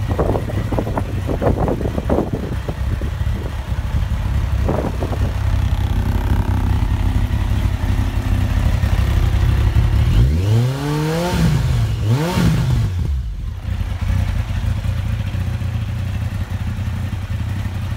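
Yamaha XJR1300 SP's air-cooled inline-four engine idling steadily through aftermarket exhausts, blipped twice about ten and twelve seconds in, each rev rising and dropping straight back to idle.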